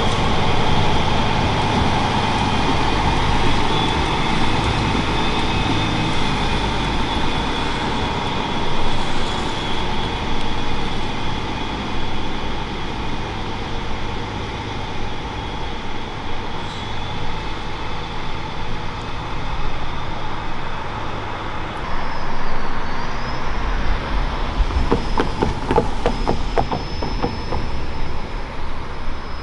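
Vossloh Citylink tram-train running past and pulling away, its diesel engine and running gear fading slowly. A run of sharp clacks comes near the end.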